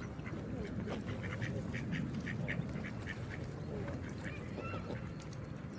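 Geese calling: a quick run of short honks at about three to four a second through the middle, then a few rising-and-falling honks near the end, over a steady rush of running water.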